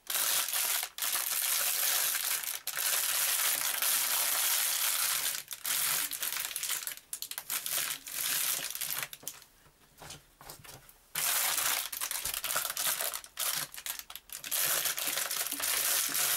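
A thin plastic bag crinkling and rustling as it is handled, in uneven bursts, with a lull of about two seconds in the middle.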